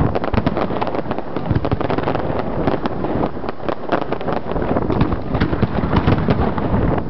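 Aerial fireworks bursting and crackling in quick, overlapping succession, a dense stream of cracks and pops over low wind rumble on the microphone.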